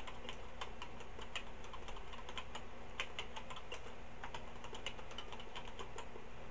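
Typing on a Tandy TRS-80 Color Computer 2 keyboard: a quick, uneven run of key clicks as commands are typed.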